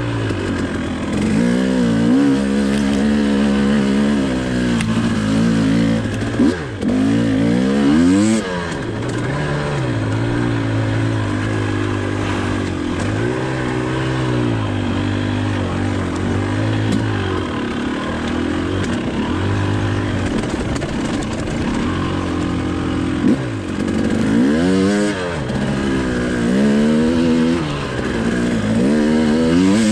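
Single-cylinder two-stroke engine of a 2019 Husqvarna TE 300i enduro bike under load on a trail climb. It holds steady throttle for long stretches, with quick rising-and-falling revs about a quarter of the way in and again in the last few seconds.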